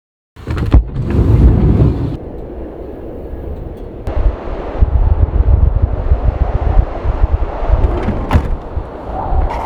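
Strong gusting wind buffeting the microphone, a heavy low rumble that swells and drops with the gusts, with a couple of sharp clicks or knocks.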